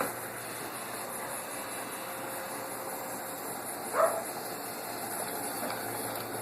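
Robot vacuum running with a steady whirring hiss while it cleans under furniture. A dog gives one short bark about four seconds in.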